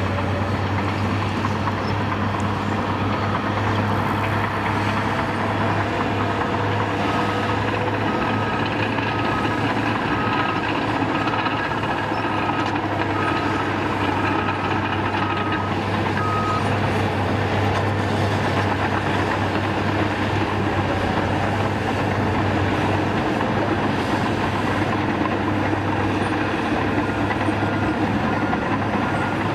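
Diesel earthmoving machinery running steadily as a CAT D5K2 LGP dozer works a dirt pile. A backup alarm beeps at an even pace from a few seconds in until past the middle, and beeps again near the end.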